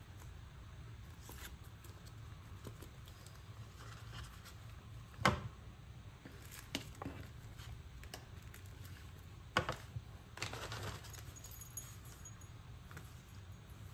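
Sticker sheets in clear plastic sleeves and paper packets being handled and set down on a desk: crinkling and rustling with a few sharp taps, the loudest about five seconds in and another near ten. A low steady hum runs underneath.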